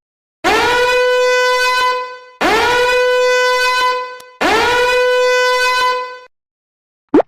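A horn blown in three long, identical notes, each scooping up briefly into a steady, buzzy pitch and held for about two seconds before fading.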